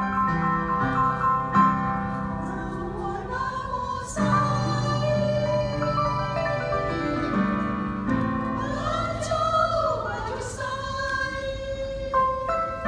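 Mixed choir of men and women singing with piano accompaniment.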